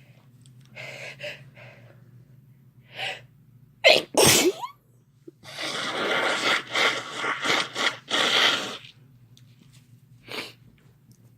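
A person's induced sneeze: a few short sharp inhalations, then one loud sneeze about four seconds in with a voiced, falling tail. Several seconds of pulsing, breathy noise follow, and a short breath near the end.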